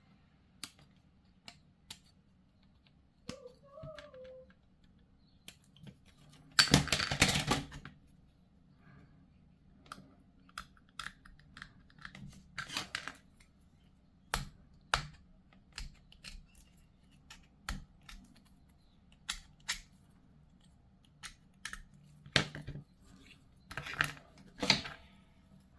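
Small hard plastic miniature parts clicking and tapping as they are handled and pressed together, in irregular sharp clicks, with a louder scraping rustle about seven seconds in and another near the end.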